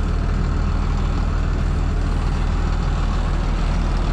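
Tow truck engine idling steadily with a low, even rumble.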